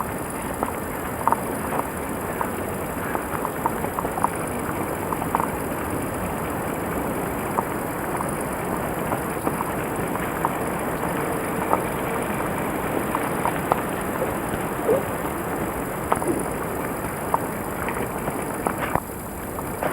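Footsteps on a forest floor, with many small crunches and crackles of leaves and twigs over a steady rustling hiss, briefly quieter near the end.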